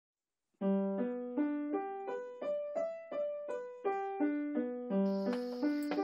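Background music: a simple piano melody played one note at a time, about three notes a second, each fading out. It begins a little over half a second in, and a faint steady hiss joins near the end.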